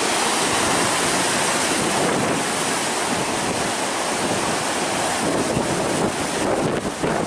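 Atlantic surf stirred up by Hurricane Dorian, waves breaking in a steady rush of noise, with wind blowing across the microphone.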